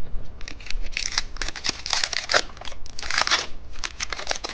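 Plastic candy packaging being unwrapped by hand: irregular crinkling and tearing, with a few louder rustles.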